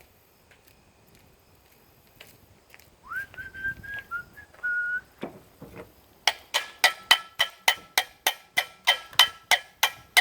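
A few whistled notes from a person, then a hammer beating on metal in a fast, even run of about seventeen ringing blows, some four or five a second, driving at a rusted-on washer on the rotor shaft of an electric lawn mower motor.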